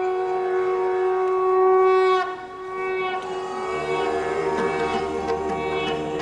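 A conch shell blown in one long steady note that dips and breaks off about two seconds in. About a second and a half later, Indian devotional dance music starts over a steady low drone.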